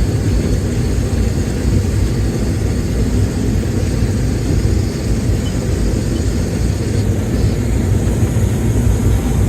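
Case IH 2188 combine running steadily while harvesting corn: a continuous low rumble from the engine and threshing machinery.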